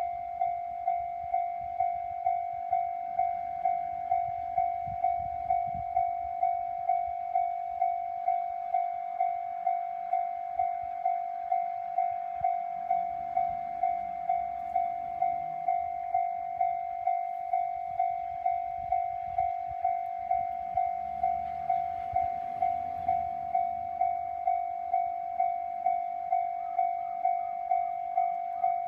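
Japanese level-crossing electronic warning bell ringing steadily at about two strikes a second. A train's low rumble comes and goes underneath.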